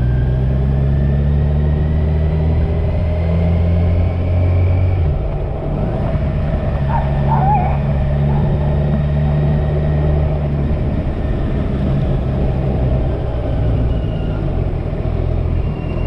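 Kawasaki motorcycle's inline-four engine pulling at road speed over wind rush, its pitch climbing for the first five seconds, then dropping at a gear change and running steady.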